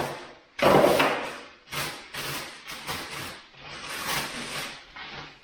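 Handling noise: a run of scraping and rustling sounds as power tools and their packaging are moved about and unpacked, the loudest about half a second in.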